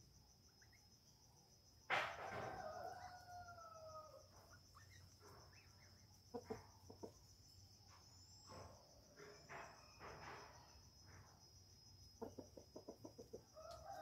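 A rooster crowing once about two seconds in, a long call that falls slightly in pitch. A steady high insect drone runs underneath, and a quick series of short calls comes near the end.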